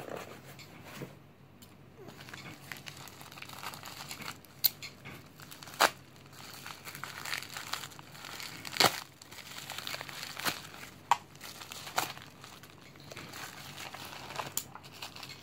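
Packing material being crinkled and rustled by hand while a shipping box is unpacked, with scattered sharp clicks and snaps throughout.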